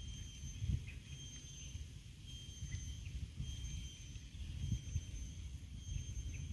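Outdoor ambience: a low rumble of wind on the microphone, gusting a few times, with a faint high-pitched tone that pulses on and off over it.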